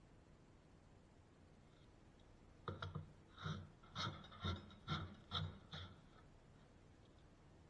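1897 Stanley No. 45 combination plane being pushed along the edge of a board, its iron shaving the wood in about seven short strokes, roughly two a second, starting a few seconds in.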